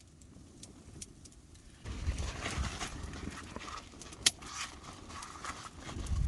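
Cooking over a wood campfire: faint crackling, then about two seconds in a louder, dense sizzling-and-handling sound of the pan starts, with one sharp pop a little past the middle.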